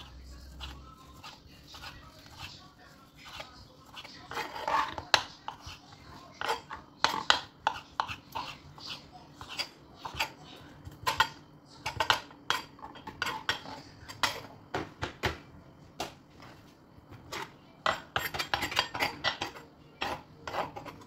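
Silicone whisk beating flour and butter, then the thickening béchamel, in a nonstick pot: quick, irregular clicking and scraping strokes against the pot, starting about four seconds in.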